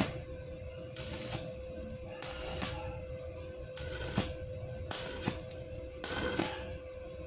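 Stick (MMA) welding arc crackling in short bursts about once a second, as a small 2 mm E6013 electrode is struck and lifted again and again on thin hollow steel tube at about 50 amps: stitch welding at low current so the thin wall does not burn through. A steady faint hum runs underneath.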